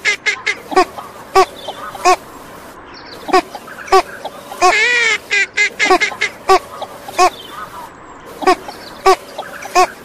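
Female northern shoveler quacking: short quacks in loose groups, with one longer quack that bends in pitch about halfway through.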